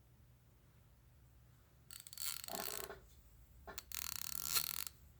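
Snap-on F80 fine-tooth 3/8-inch drive ratchet being swung back and forth, its 80-tooth pawl mechanism giving a rapid, fine clicking. The clicking comes in two runs of about a second each, the first about two seconds in and the second about a second later.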